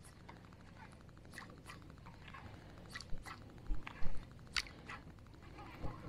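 Baitcasting reel being cranked, a fast, fine, even ticking that stops about halfway through, with scattered sharp clicks and snaps of rod and line as a jerkbait is worked.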